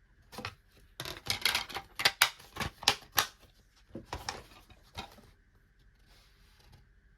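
Plastic DVD cases being handled: a quick run of sharp clicks and clacks, loudest in the middle, which dies away after about five seconds.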